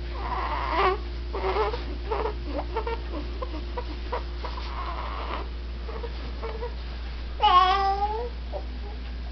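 A pet cat making odd, repeated vocal noises: short chirping and breathy calls, then one louder drawn-out meow, its pitch dipping and rising, about seven and a half seconds in.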